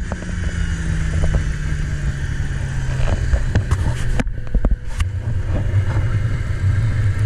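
Snowmobile engine running underway, with wind hiss over the microphone. The steady engine note breaks off about four seconds in amid a few sharp knocks, then comes back.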